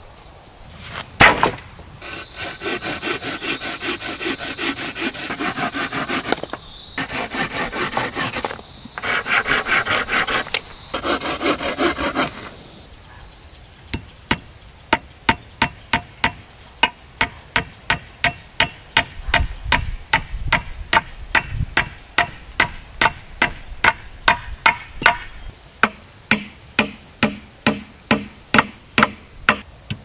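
A thump about a second in, then a hand saw cutting wood in several bouts of strokes. After a short pause, a nail is hammered into a wooden pole with sharp, even knocks about two a second.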